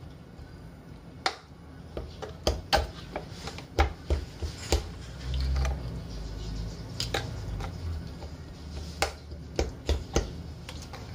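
Metal fork clicking against a ceramic bowl as it stabs and turns pieces of raw pork in marinade. The sharp clicks come at an uneven pace, some in quick pairs, with a few seconds' pause in the middle.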